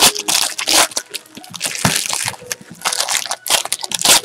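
Foil wrapper of a Panini Contenders Draft Picks football card pack being torn open and crumpled by hand, a run of sharp crackling and crinkling bursts.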